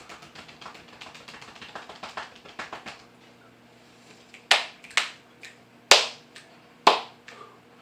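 Rapid light clicking for about three seconds, then a series of sharp, loud smacks about a second apart.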